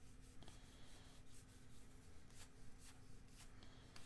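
Faint flicks and rubs of baseball cards being thumbed one by one across a stack, about three light ticks a second, over a faint steady hum.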